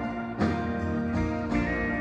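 Live band playing an instrumental passage on guitars: a chord struck about half a second in, with a long held high note near the end.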